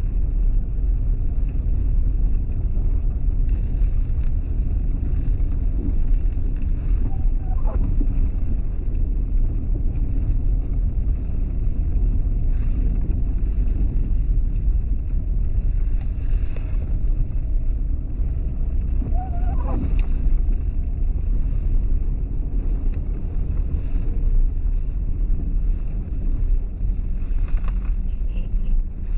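Steady low rumble of vehicle noise during a snowstorm, with two faint brief wavering tones about a quarter and two-thirds of the way through.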